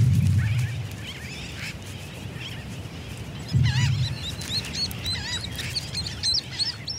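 Sooty terns calling: short, high, bending cries that come thick and fast from about three and a half seconds in. These are a chick's begging cries as it is fed regurgitated squid. Two swells of low rumbling noise, one near the start and one about three and a half seconds in, are the loudest sounds.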